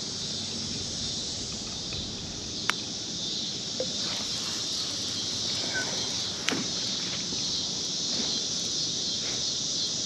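Steady high-pitched insect chorus, with a couple of sharp clicks about three and six and a half seconds in.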